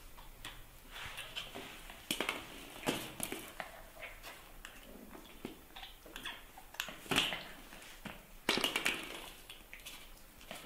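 Irregular light taps, clicks and rustles, with a few louder knocks scattered through: handling noises from a baby monkey drinking from a small plastic bottle and a puppy pawing and chewing at a cloth pillow.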